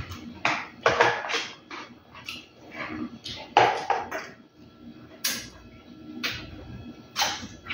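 Eating sounds close to the microphone: irregular chewing and lip smacks, with light knocks of fingers and food against a plastic tub.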